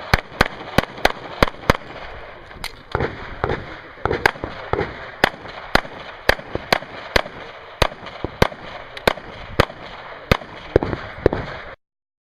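Pistol shots fired in quick succession: a fast run of about six shots, then more than a dozen more at roughly one every half second. The sound cuts off abruptly near the end.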